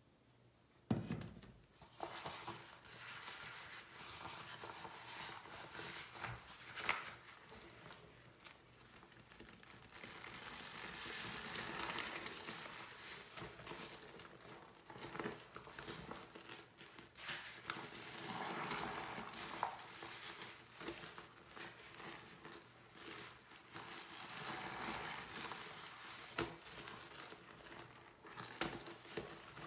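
Wet sponge loaded with cleaner being squeezed and rubbed by rubber-gloved hands in a sink of soapy suds. It starts about a second in and rises and falls in long swells, with occasional sharp clicks.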